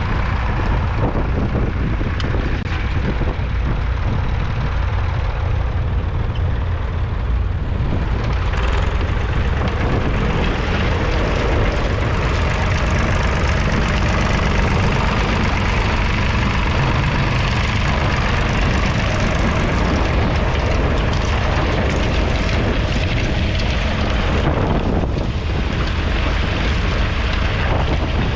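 1969 David Brown 780's 2.7-litre three-cylinder diesel engine running steadily with a deep, even rumble while working a two-furrow plough.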